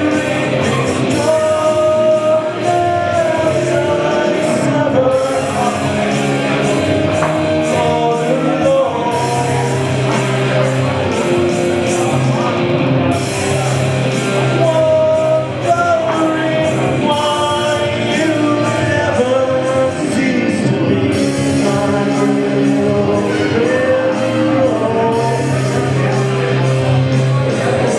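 Live rock music: a singer sings over instrumental accompaniment.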